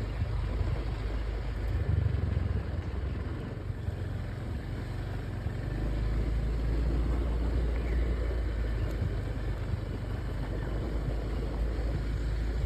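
Motor scooter running as it is ridden along, with a steady low rumble.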